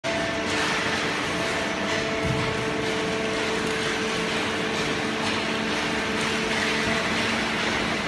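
Waste paper baler line running, its conveyor and hydraulic baler giving a steady mechanical hum with several held tones over a hiss.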